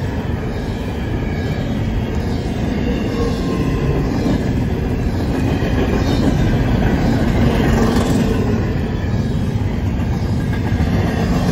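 Double-stack intermodal well cars rolling past at speed on a curve: a steady loud rumble and clatter of steel wheels on rail, with faint intermittent wheel squeal.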